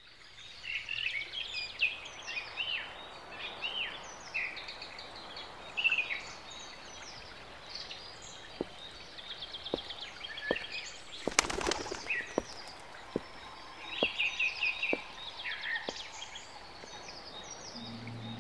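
Songbirds chirping and trilling over a faint outdoor background hiss. In the middle comes a run of light knocks, about one every two-thirds of a second, with a short loud rushing burst among them, and a low steady drone comes in near the end.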